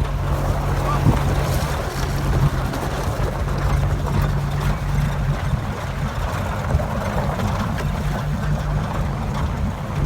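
Vehicle running with a steady low engine hum and rumbling road and wind noise.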